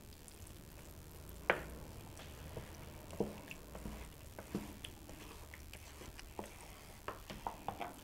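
Wooden spoon stirring wet cornbread dressing in a large mixing bowl: soft squelching of the moist crumbs with irregular light knocks of the spoon against the bowl, the sharpest about a second and a half in and several close together near the end.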